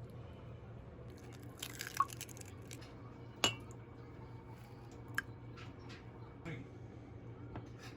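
A few light clinks of small hard objects being handled and set down, about two, three and a half and five seconds in, with a brief rustle just before the first, over a faint steady low hum.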